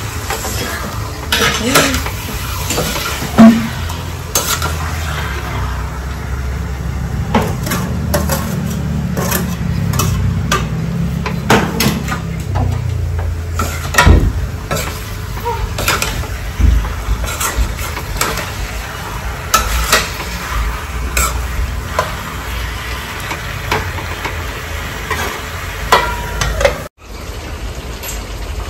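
Chicken sizzling as it fries in a pan, with a metal spoon stirring it and clinking and scraping against the pan at irregular intervals.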